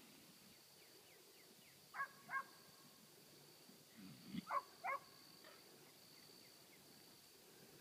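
Dog barking: two pairs of short, quick barks about two and a half seconds apart. A faint steady high whine runs underneath.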